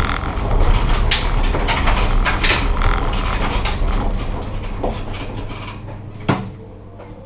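Race car heard from inside its stripped-out, roll-caged cabin: low engine and drivetrain rumble with many rattles and clunks of the bare bodywork, dying away as the car slows. About six seconds in the rumble drops off and a single sharp knock sounds.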